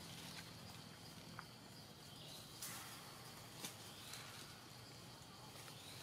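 Quiet outdoor ambience: a steady low hum with a few soft clicks and faint high chirps.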